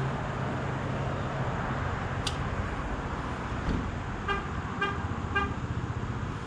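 Three short beeps of a motorcycle horn, about half a second apart, over a steady low engine idle, with a sharp click a couple of seconds before the beeps.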